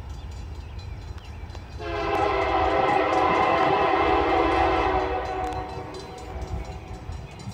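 Diesel freight locomotive horn sounding one long blast of about three seconds, starting about two seconds in and fading out, over a low rumble from the approaching train.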